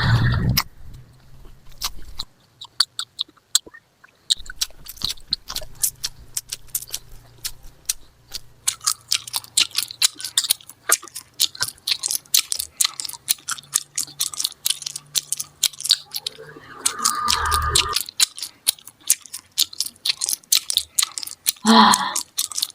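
A person chewing and biting food close to the microphone, with many quick, crisp clicking crunches that come thickest in the second half.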